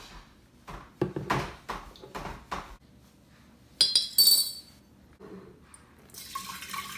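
Glass carafe handled on a countertop: a run of light knocks, then a bright ringing glass clink about four seconds in. About six seconds in, hot brewed berry tea starts pouring into the glass carafe with a steady rushing splash.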